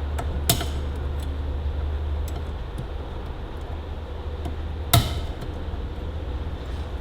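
Circlip pliers working a steel circlip on a Ferguson TEA20 PTO shaft, making sharp metallic clicks as the tips catch and slip: a loud snap about half a second in, fainter ticks, and the loudest click near five seconds. A steady low hum runs underneath.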